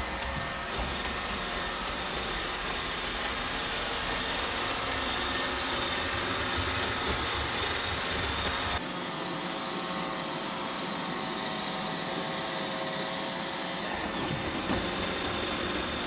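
iRobot Roomba 800-series robot vacuum running: a steady motor whine with several high tones over a hiss. About nine seconds in, the low rumble drops away abruptly and the sound turns thinner.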